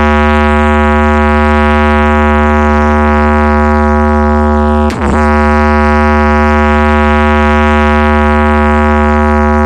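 Loud sound-check track on a large PA loudspeaker system: a steady buzzing synth drone with very heavy deep bass, broken once by a short sweep about five seconds in.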